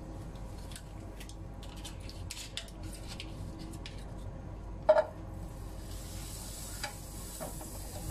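Butter melting and sizzling in a hot nonstick frying pan while a wooden spatula stirs and scrapes it. Before that come scattered light ticks and one sharp knock about five seconds in, after which the sizzle builds.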